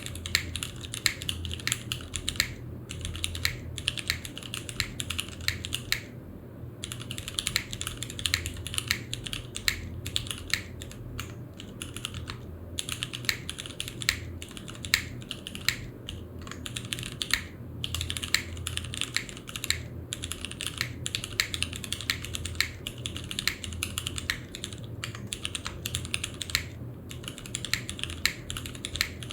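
Custom 60% mechanical keyboard with tactile Cherry MX Grey switches on a polypropylene plate, under GMK keycaps, being typed on in a fast, continuous run of keystrokes with a few brief pauses. A low steady hum sits underneath.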